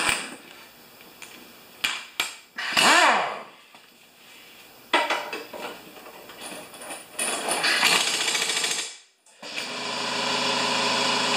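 Pneumatic impact wrench run in several short bursts to tighten a lawn mower's blade bolt, the longest burst about two-thirds of the way in. Near the end an air compressor starts up and runs steadily.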